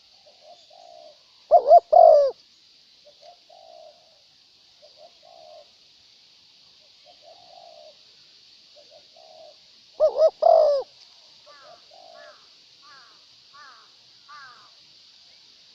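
Spotted doves cooing: two loud, close bursts of two- and three-note coos about 2 s and 10 s in, with fainter short coos repeating every second or so between them. After the second loud burst come five short, higher call notes, over a steady high hiss.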